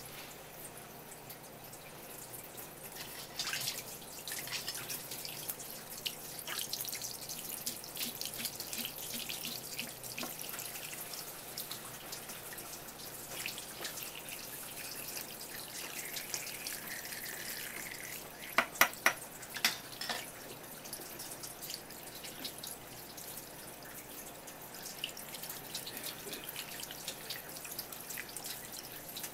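Thin stream of tap water splashing onto a wooden cutting board and running over a sardine as it is rinsed and rubbed by hand, with irregular wet drips and ticks. A quick run of about four sharp clicks about two-thirds of the way through.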